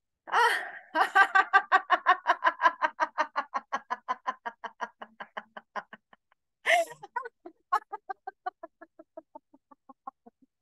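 A woman laughing in long, rhythmic 'ha-ha-ha' runs of about six pulses a second. There are two runs, each begun with a sharp intake of breath and fading away. This is the drawn-out, deliberate laughing of laughter yoga.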